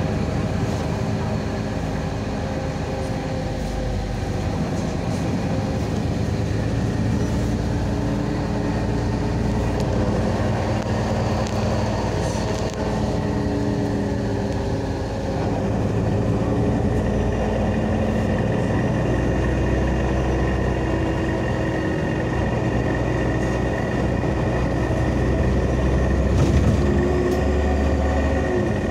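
Cabin noise of an articulated LAZ city bus under way: a steady low rumble of engine, drivetrain and tyres, with hum tones that slowly rise and fall as the bus changes speed. The rumble swells near the end.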